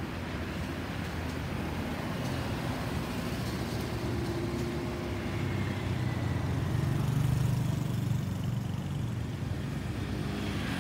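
Low, steady rumble of an Airbus A320-216's jet engines after it has flown over, mixed with road traffic. The rumble swells about seven seconds in.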